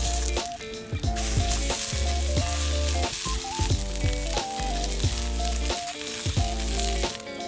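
Food sizzling and frying on a hot pan, a dense steady hiss that breaks off briefly twice, under background music with a bass line and changing melody notes.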